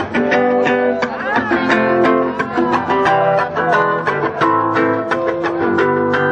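Acoustic guitar playing a quick passage of strummed and plucked notes.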